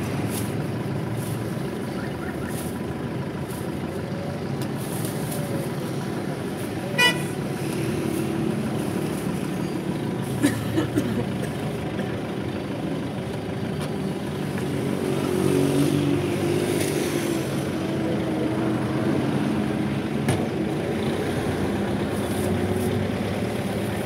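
A motor vehicle running steadily, with a short horn toot about seven seconds in and a few brief knocks a little later.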